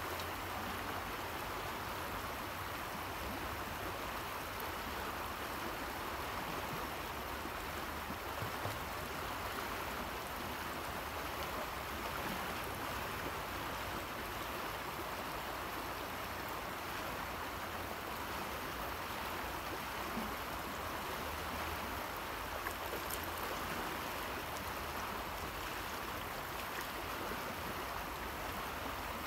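Steady rush of the Rio Grande's flowing water, an even hiss that doesn't change, with a few faint ticks here and there.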